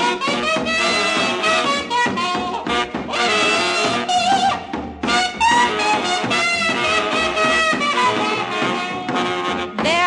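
Instrumental break of a swing-style band arrangement, with horns carrying the tune between sung verses.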